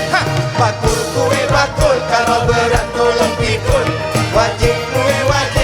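Live joget music from a Malay orchestra: a melody over a quick, steady drumbeat.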